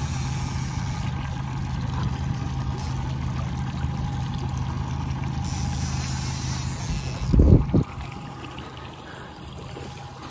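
Boat's outboard motor running steadily at trolling speed over the wash of choppy water. About seven and a half seconds in there is a loud, short low thump, after which the motor's hum drops away.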